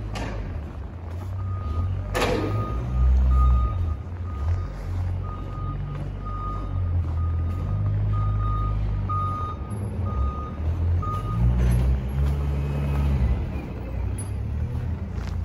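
Reversing alarm of a snow-clearing loader beeping about once a second, then stopping near the end, over a low rumble. A single sharp knock about two seconds in.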